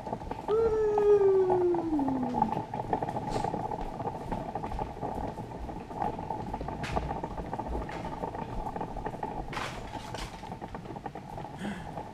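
Stroller wheels rolling over a hardwood floor, a steady rumble with a few faint clicks. About half a second in, a loud cry slides down in pitch over about two seconds.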